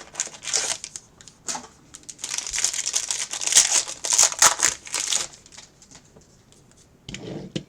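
Trading card pack wrappers crinkling as packs are handled and torn open, in irregular bursts that are busiest in the middle and die down near the end.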